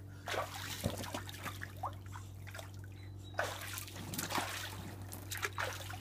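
Light, irregular splashing and sloshing of shallow water in an inflatable paddling pool as a toddler moves and paddles with the hands, in scattered bursts with short lulls between.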